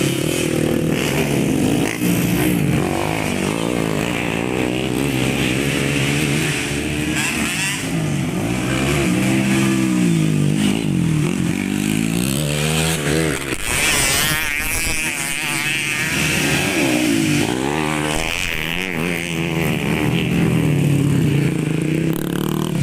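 Modified underbone motorcycles racing, their engines revving hard, the pitch climbing and dropping again and again with throttle and gear changes, at times more than one bike heard at once.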